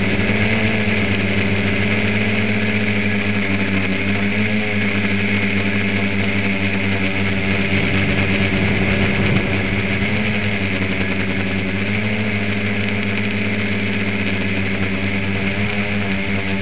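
Radio-controlled tricopter's motors and propellers running steadily in flight, a loud even hum that rises and dips a little in pitch now and then.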